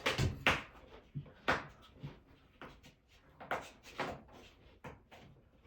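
A dozen or so short, irregular knocks and scrapes from handling floor-heating installation materials on a subfloor.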